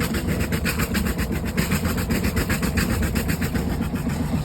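Small marine diesel engine idling steadily, its wet exhaust puffing out cooling water in a fast, even rhythm of several pulses a second. This shows the raw-water cooling is flowing and the engine is running normally on its relocated fuel tank.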